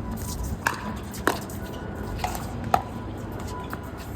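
Pickleball paddles striking a plastic ball during a rally: four or five sharp pops, about half a second to a second apart, over wind rumbling on the microphone.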